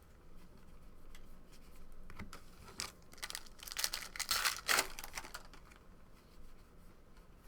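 Trading cards being handled and flipped through by hand: irregular papery slides, rustles and light clicks, busiest in the middle.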